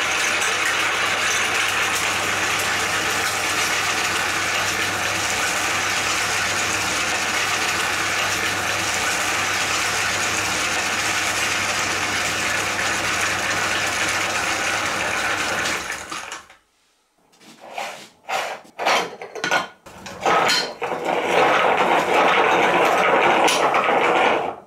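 Electric meat grinder running steadily with a motor hum, grinding dyed boiled eggs through its cutting plate; it cuts off suddenly about two-thirds of the way through. A few short knocks follow, then another stretch of steady loud noise near the end.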